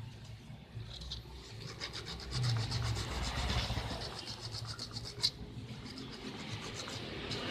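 Sandpaper rubbing back and forth in quick strokes over the brass contacts of a motorcycle horn switch, with a single sharp click about five seconds in. The contacts are being cleaned of black dirt that kept the switch from connecting, so the horn would not sound.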